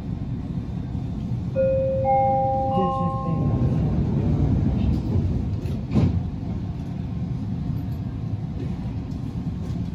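Canada Line SkyTrain door-closing chime: three rising notes about half a second apart, ringing over the low hum of the stopped train, then a single thump about six seconds in.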